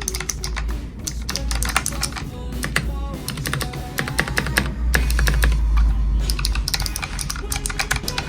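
Rapid typing on a Razer Huntsman keyboard whose switches have been lubricated and whose case is padded with neoprene strips, the keystrokes clattering in quick succession. Background music with a heavy bass plays under it.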